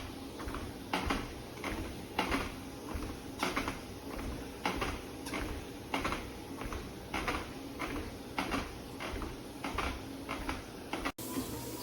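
Footsteps thudding on the belt of a running walking-pad treadmill, about one to two steps a second, over a steady low hum.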